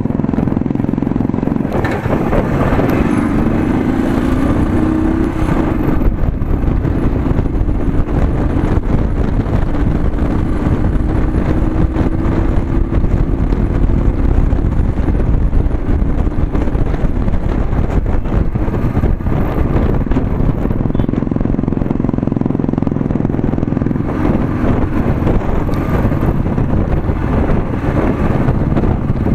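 Motorcycle engine running at riding speed, with heavy wind rumble on the camera's microphone; the engine note climbs gradually a couple of times as the bike gathers speed.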